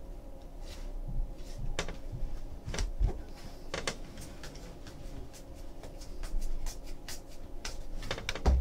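Trading cards being flipped through by hand: irregular soft flicks and clicks of card stock, over a faint steady room hum.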